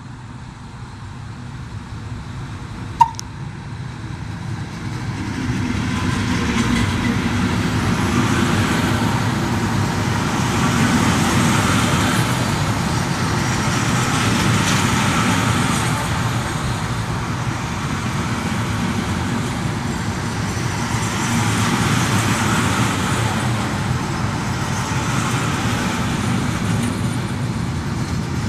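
Electric-hauled container freight train approaching and rolling past at close range: rumble of the wagons' wheels on the rails, rising over the first few seconds and then holding loud with slow swells. A single sharp click about three seconds in.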